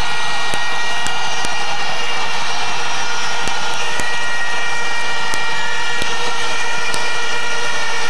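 Football stadium crowd cheering a goal, with many plastic trumpets holding a steady, many-toned drone over the roar. Scattered sharp clicks sound through it.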